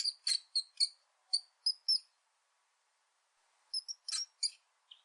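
Rat squeaking: short, high-pitched squeaks in a quick run over the first two seconds, then a few more about four seconds in.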